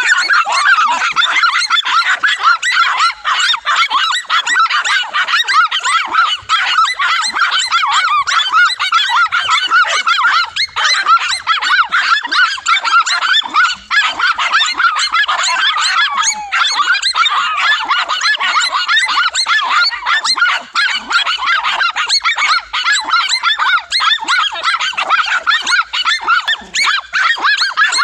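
Several dogs barking and yapping nonstop, many high-pitched barks overlapping into a continuous din, the agitated barking of dogs holding a lizard at bay.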